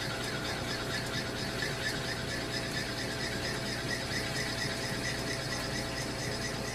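South Bend lathe running while a drill bit cuts into the bore of a steel motorcycle handlebar, giving off a steady high squeal over the machine's hum.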